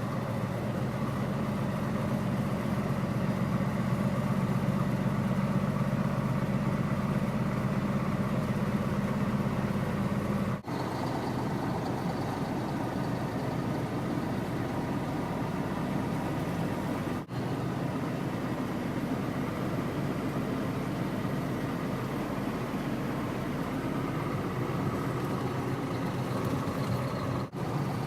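Steady engine and road noise inside a semi-truck's cab, with three brief dropouts.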